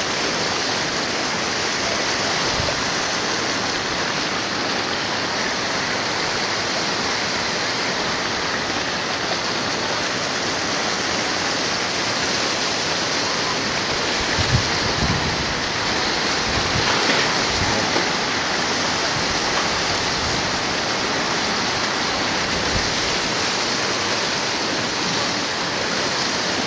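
Floodwater rushing fast over a road and against a wall, a steady, unbroken sound of flowing water. A few short low bumps, the loudest about halfway through.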